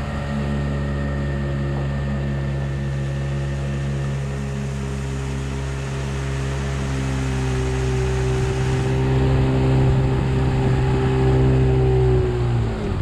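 Outboard motor pushing an aluminium tinny along at speed, a steady engine note with water rushing past the hull. It grows a little louder late on, then the revs drop away right at the end.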